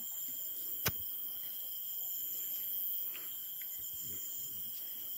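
Steady high-pitched chorus of night insects such as crickets, with one sharp click about a second in.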